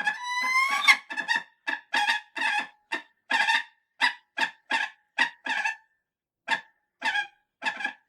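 Falcon screeching: a long call rising in pitch in the first second, then a fast run of short, harsh, repeated calls, about two a second, coming further apart near the end.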